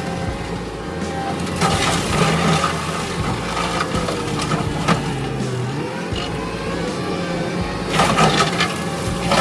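Kubota SVL65 compact track loader's diesel engine running under load, its pitch wavering and dipping about halfway through, with bursts of crashing noise about a second and a half in and again near the end.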